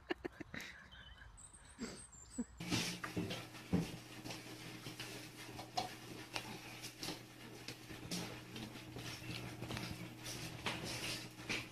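Cats crunching dry kibble from plates: many short crunches and clicks over a steady low hum. This follows a couple of seconds of quick low pulses.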